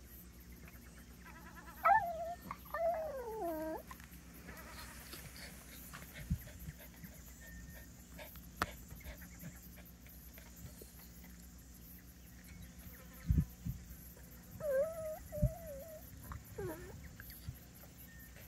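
Small dog whining in wavering, high cries, complaining at being left behind: one bout about two seconds in that slides down in pitch, and another near the end. A few dull low thumps come in between.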